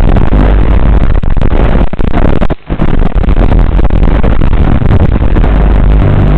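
Racing quadcopter's electric motors and propellers, heard loud and distorted over the analog FPV video link, with a brief dropout about two and a half seconds in.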